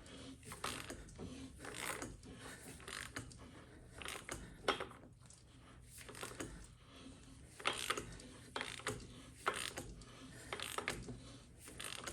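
Ratchet and socket on the hex head of a crank hub installer's forcing screw, clicking in irregular strokes as the screw is worked round to press the hub onto the crankshaft snout, with occasional sharper knocks of metal on metal.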